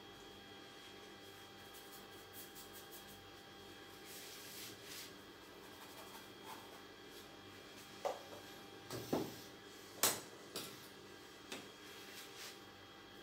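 Paintbrush strokes on canvas, faint rubbing, then several sharp clicks and knocks from about eight seconds in, the loudest a little after ten seconds. A faint steady electrical hum underlies it all.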